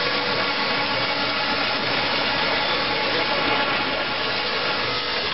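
Chain link fence making machine (LW25-80) running, weaving wire into diamond mesh: a steady, loud mechanical noise.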